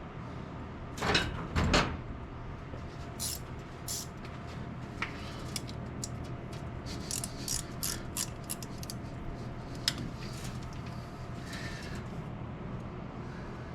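Two loud knocks about a second in, then a ratchet wrench clicking in short runs as bolts are worked loose on the engine's top end.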